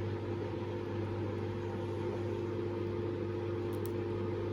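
Washing machine running in the background: a steady mechanical hum with a low drone and a higher held tone.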